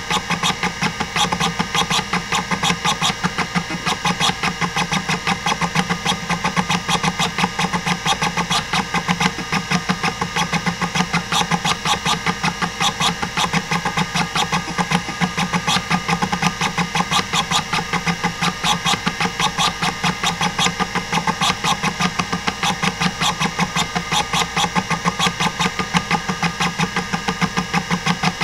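Hitachi DK505-2 26 MB stepper-motor hard drive doing random seeks under a benchmark: the stepper head actuator clicks and buzzes in a fast, even patter of about six seeks a second, over the steady hum of the spinning platters.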